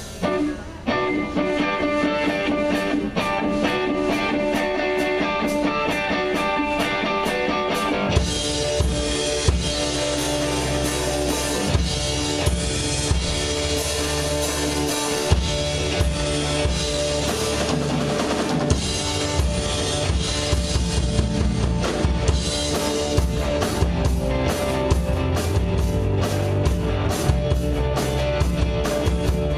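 Live rock band starting a song: guitar with steady drum ticks at first, then bass and full drum kit come in about eight seconds in and the band plays on together.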